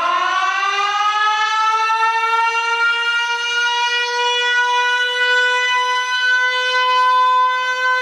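Rögle BK's goal horn: one long, loud, siren-like tone. Its pitch finishes a rise over the first few seconds, then holds steady.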